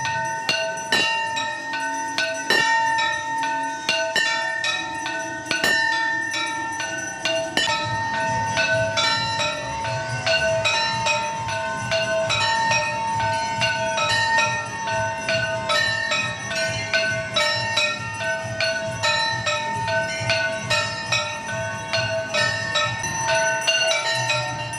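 Temple bells rung in quick, continuous strikes, their ringing tones hanging on between strokes. About a third of the way in, a low pulsing beat joins underneath.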